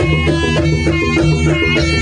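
Loud live jaranan accompaniment music: a traditional East Javanese percussion ensemble with drums, playing sustained melody notes over a steady rhythm.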